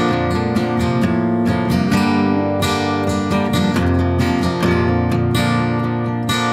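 Acoustic guitar strummed in a steady rhythm, chords ringing between the strokes, with no voice.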